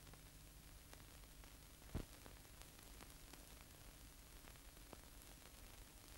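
Near silence: faint hiss and low hum of an old film soundtrack, with scattered faint crackles and one louder pop about two seconds in.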